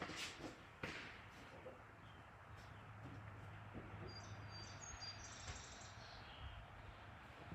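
Two light clicks or knocks in the first second, then faint high bird chirps in the middle over a low steady hum.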